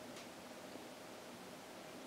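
Quiet room tone: a faint steady hiss with one soft click shortly after the start.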